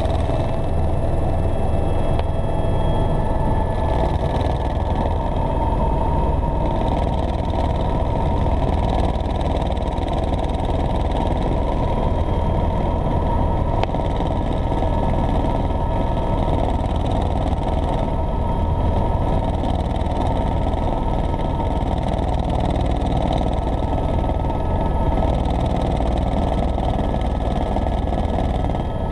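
Helicopter in flight: the engine and rotor make a loud, steady drone that does not change.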